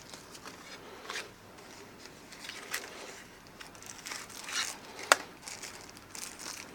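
Packaging being handled and unwrapped by hand: scattered soft crinkling and rustling with light clicks, and one sharp click about five seconds in.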